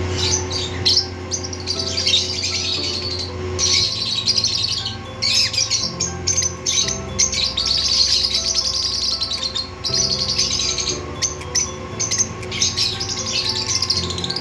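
Lovebirds chirping in a dense, rapid stream of high calls throughout, over background music with held low notes.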